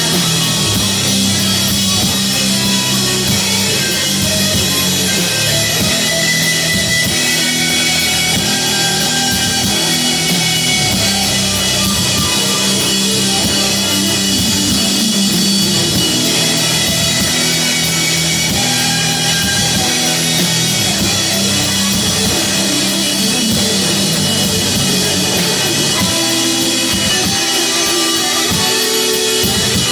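Live heavy doom-metal band playing: distorted guitar and bass holding long, low chords over a drum kit, with the riff changing near the end.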